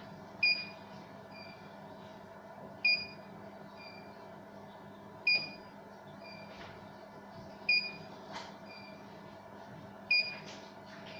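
CNY embroidery machine's control unit beeping in a steady repeating pattern: a short beep, then a fainter one about a second later, repeating roughly every two and a half seconds over a steady electrical hum. A few faint clicks come in between.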